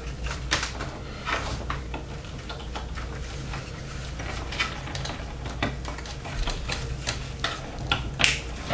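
Irregular clicks and rustles of PC power-supply cables and plastic connectors being handled and pushed into place inside a computer case, with a sharper click near the end, over a steady low hum.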